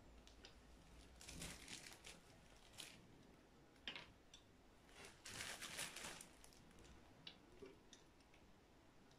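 Faint plastic bag crinkling in several short bursts, the longest about five to six seconds in, as chopped walnuts are taken from it and sprinkled by hand.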